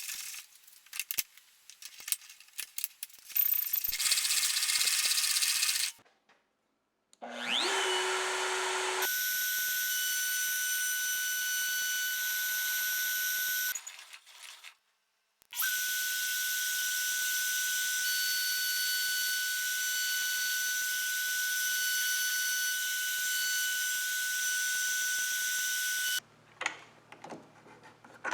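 Makita compact router on a homemade plywood milling machine, spinning up with a rising pitch and then running at speed with a steady high whine, in several separate runs.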